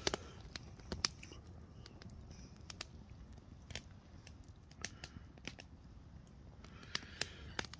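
Faint, irregular sharp clicks and ticks, about a dozen scattered unevenly, over a low, steady background noise.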